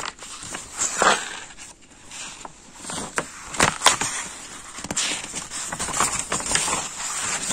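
Sheets of printed paper rustling and crinkling as pages are handled and turned, in a run of short irregular scrapes and crackles.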